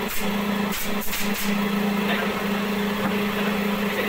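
Air compressor motor running with a steady hum while a pneumatic upholstery staple gun fires several quick shots about a second in, stapling fabric onto a padded headboard.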